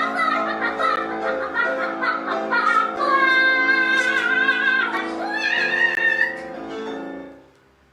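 Closing bars of a show-tune style children's song with piano and long held sung notes, dying away about seven seconds in.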